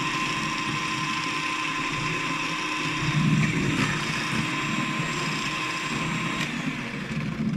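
Electric mixer running steadily, beating eggs and sugar for cake batter.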